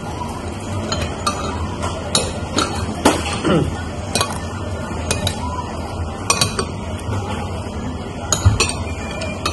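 Metal spoons and chopsticks clinking and scraping against ceramic bowls while eating: light, irregular clinks, about a dozen in all, over a steady low hum.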